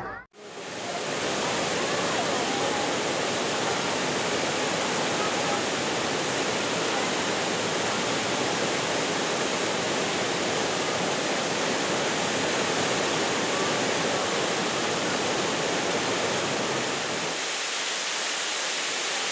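Waterfall pouring over rocks: a steady, even rush of falling water, its low rumble thinning out near the end.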